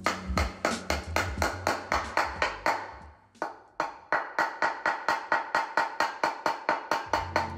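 Rapid, even mallet blows, about five a second, on a sheet-metal motorcycle gas-tank half being shaped over a leather sandbag. There is a short pause about three seconds in.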